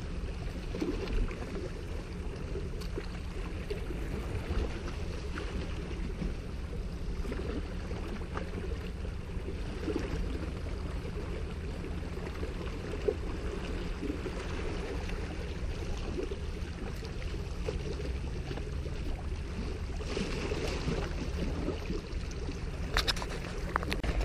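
Steady low rumbling noise of wind and small waves washing against shoreline rocks, with a few brief sharp clicks, two of them near the end.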